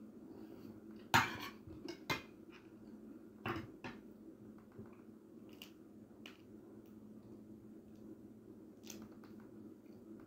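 A plate and eating utensils clink and knock on a table during a meal: a sharp clatter about a second in, another about two seconds in, a pair near three and a half seconds, then a few lighter handling clicks. A steady low hum runs underneath.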